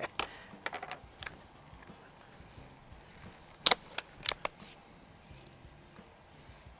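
Handling of a Daisy Model 131 break-barrel air rifle: a few light clicks, then one sharp clack a little past halfway, followed by two smaller clacks.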